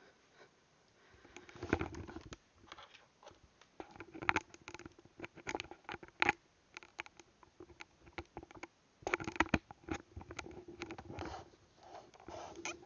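Handling noise from a headset microphone: irregular scratching, rubbing and clicks, with heavier thumps about two seconds in and again around nine seconds.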